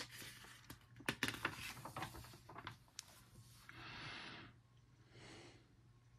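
Paper page of a coloring book being turned, with a run of crinkling and crackling, followed by two soft breathy rushes of noise.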